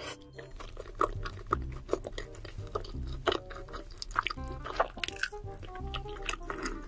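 Background music with low bass notes, over close-miked chewing and mouth clicks from eating creamy rosé tteokbokki rice cakes and glass noodles.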